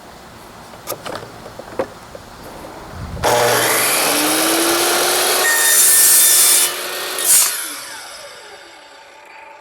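A few handling knocks, then a small saw with a fine-tooth blade cutting through a vinyl rain gutter. The saw starts suddenly about three seconds in and runs steadily for about four seconds, with a faint rising whine. It then eases off and fades.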